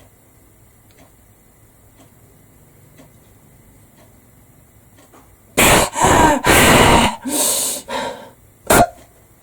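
A person acting out holding their breath: about five seconds of hush, then the held breath let go in several loud, heavy gasping breaths, and one short sharp hiccup near the end showing the hiccups have not stopped.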